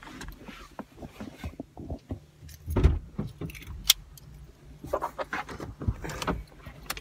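Car engine idling as a steady low hum inside the car, under scattered clicks, rattles and jingles from a phone and small things being handled, with a louder knock about three seconds in.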